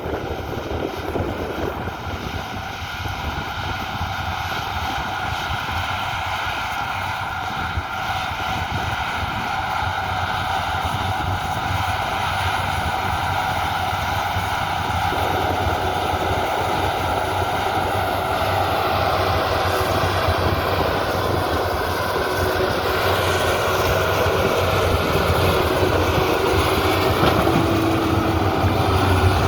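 Bulldozer diesel engine running steadily. The sound grows fuller and slightly louder about halfway through.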